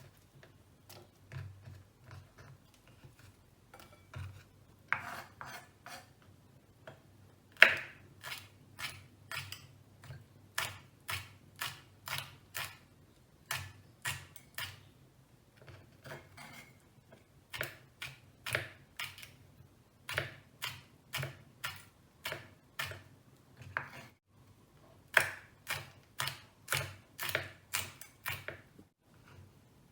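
Kitchen knife chopping on a cutting board: a few sparse strokes slicing cucumber, then, from about eight seconds in, chopping chillies in quick runs of about two crisp strokes a second with short pauses between runs.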